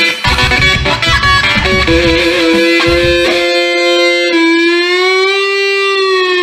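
Electric guitar instrumental: quick runs of notes over a heavy low rhythm, then a long sustained note held for the last few seconds, its pitch rising slowly and sinking back.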